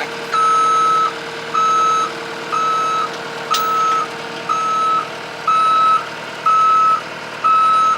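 Loader's backup alarm beeping at a steady pitch about once a second as the machine reverses, over a steady hum.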